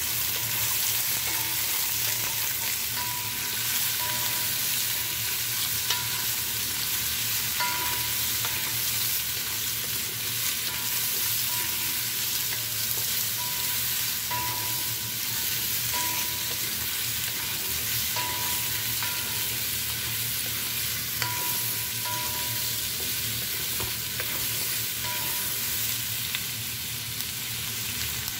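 Dried mushroom and bamboo shoot pieces sizzling in hot oil as a wooden spatula stirs them round the pan. The spatula gives light scrapes and taps against the pan every second or so.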